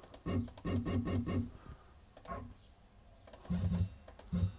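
Shapeoko CNC router jogged down in small steps: a quick run of five short stepper-motor buzzes, each with a click, in the first second and a half, then a few more about three and a half seconds in. The steps lower the bit toward the touch probe.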